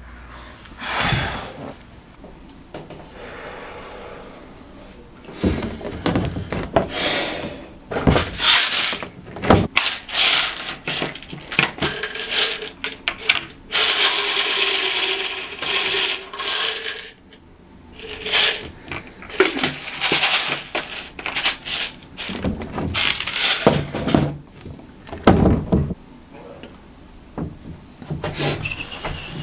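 A run of handling sounds: knocks, clicks and rustles as a plastic pill bottle is opened and pills rattle out into a hand. Near the end a bathroom faucet starts running.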